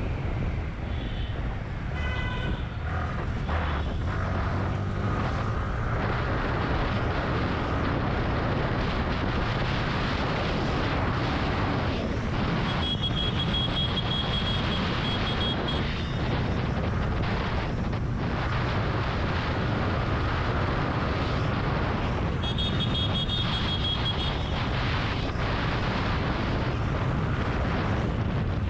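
Motorcycle running at road speed through traffic, its engine and road noise mixed with wind rushing over the action camera's microphone. Vehicle horns sound briefly about two seconds in, again around the middle, and once more later on.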